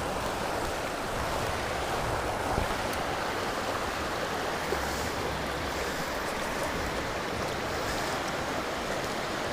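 Mountain stream water flowing, a steady even rush.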